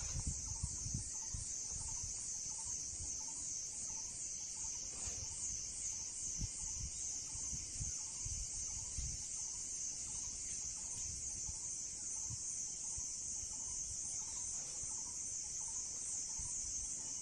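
Steady, high-pitched insect chorus with a fast pulsing texture, over a faint lower note repeating about every half second and some low rumbling on the microphone.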